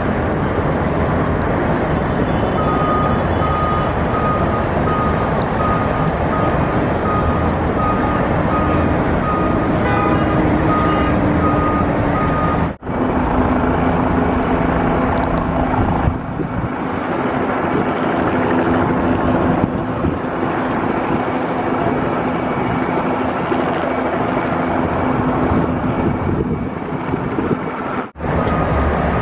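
Heavy vehicle engines running with a steady rumble, and a backup alarm beeping about every half second for the first half, from a truck or heavy equipment reversing. The sound cuts out briefly twice.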